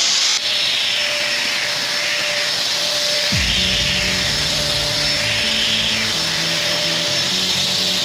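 Vacuum cleaner running steadily, a continuous hiss with a fixed whine, swelling and easing a little every second or so.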